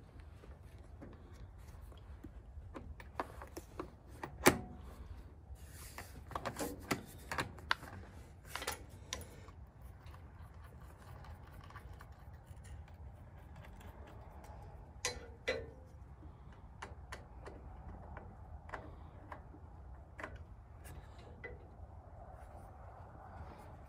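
Scattered clicks, taps and light knocks of hands working on a 12,000 lb winch's control box and its cables. The sharpest click comes about four and a half seconds in, with a burst of clicks over the next few seconds and a couple more around the middle.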